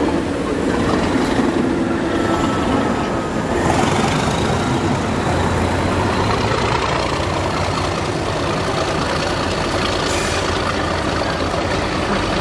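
Class 37 diesel locomotive's English Electric V12 engine running as it hauls a rake of Merseyrail Class 508 units past, with steady rumble from the wheels on the rails. The engine passes first and the unpowered coaches roll by after it.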